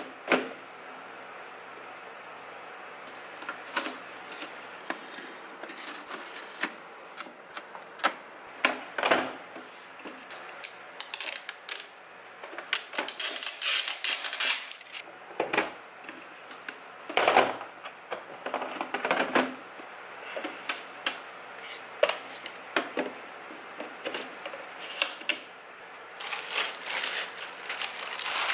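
Unpacking and handling the plastic and cardboard parts of an AeroGarden Bounty Elite: scattered clicks, taps and knocks, with stretches of crinkly rustling.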